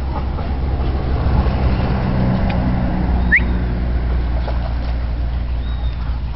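Low, steady rumble of a motor vehicle's engine that swells through the middle, with a short rising high chirp a little past three seconds in.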